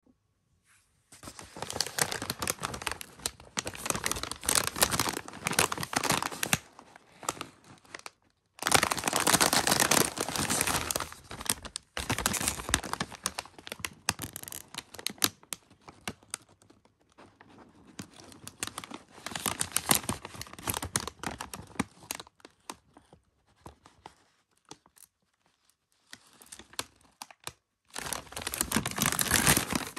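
Plastic potato chip bag crinkling and rustling as it is handled and turned over, in several long spells broken by short pauses.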